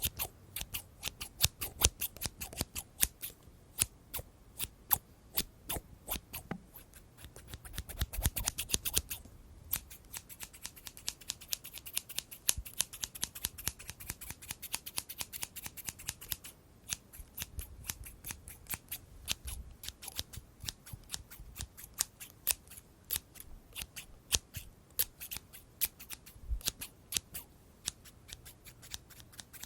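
Scissors snipping over and over in quick, sharp cuts, with a softer rustle in the middle.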